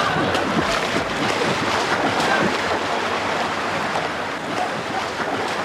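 Water splashing and churning as a person swims through a pool.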